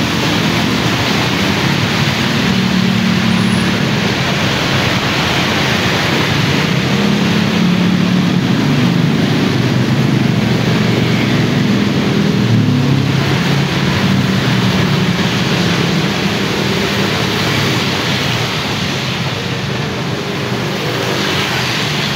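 Motorbike and car traffic passing on a rain-soaked road: a steady hiss of rain and wet tyres, with the hum of small motorbike engines swelling and fading as they go by. It eases a little near the end as the traffic thins.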